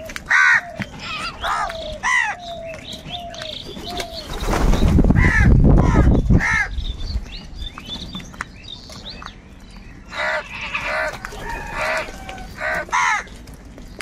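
A flock of house crows cawing: many short harsh calls, several birds answering one another, with a dense run of calls towards the end. A loud rushing noise swells and fades about four to six seconds in.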